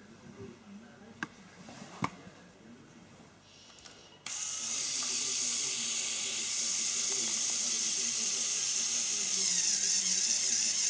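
A few small plastic clicks, then about four seconds in a Lego Technic Power Functions electric motor switches on and runs with a steady high whine through its plastic gear train, driving the linear actuator that lifts the boom. The whine drops a little in pitch near the end as the load comes on.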